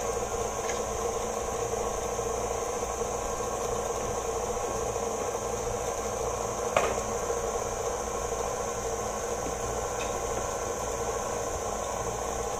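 A steady mechanical hum from a running machine, with a single light knock about seven seconds in.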